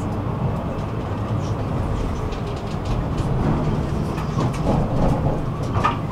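Tram running along street track, heard from inside the passenger cabin: a steady low rumble of wheels on rails and running gear, with faint scattered clicks and a brief higher squeak near the end.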